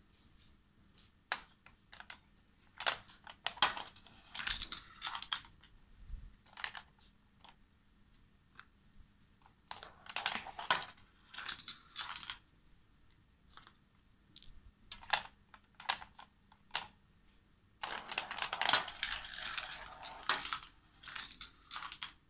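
Steel marbles rolling and clattering through a plastic GraviTrax marble run: scattered single clicks and three clusters of quick rattling clicks a few seconds apart, the last near the end the longest.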